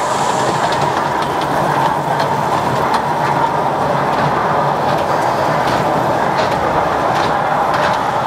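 Small kiddie track train running around its oval steel track: a steady rumble and whine from the wheels and drive, with scattered light clicks.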